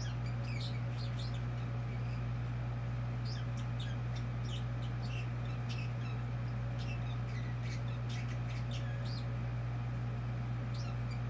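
A caged pet bird chattering: scattered short, high chirps and clicks, several every second or two, over a steady low hum.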